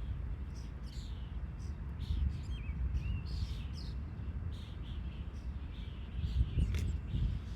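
Small birds chirping in many short calls over a steady low rumble.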